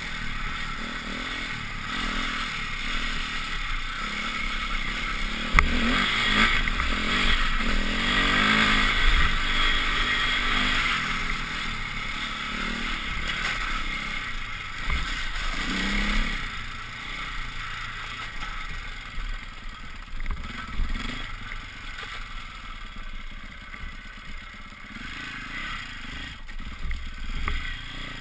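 Dirt bike engine running as it rides over a rough, muddy trail. The engine note rises and falls with the throttle, and there are a few sharp knocks. It is louder in the first half and eases off after about sixteen seconds.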